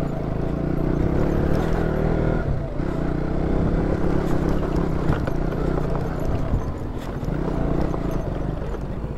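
KTM Duke 200's single-cylinder engine running steadily at low speed under way, with scattered knocks from the bike riding over a stony dirt track.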